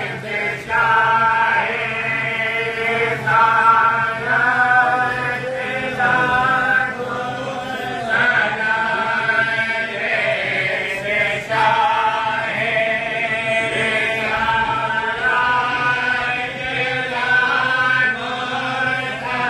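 A group of men chanting a devotional hymn together in unison, in short phrases one after another.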